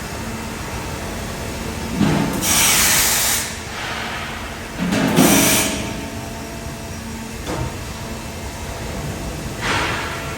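Factory machinery running with a steady hum, broken by sudden bursts of hiss: two loud ones of about a second each, about two and five seconds in, and a fainter one near the end.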